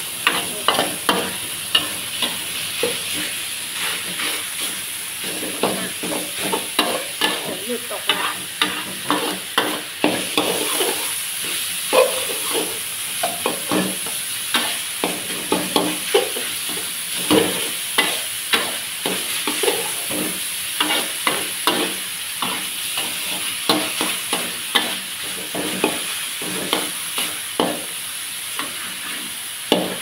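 Metal spatula scraping and knocking against a thin metal wok in quick, irregular strokes while minced pork and garlic sizzle steadily in the hot oil.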